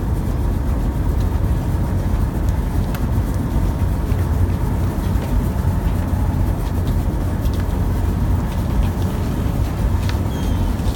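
Fishing trawler's engine running with a steady, loud low drone. A few faint clicks sound over it.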